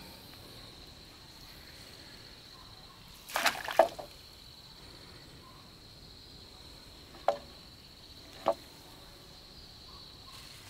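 Water splashing in a short burst about three and a half seconds in, then two brief, sharp splashes about a second apart near the end, over a steady high-pitched hum.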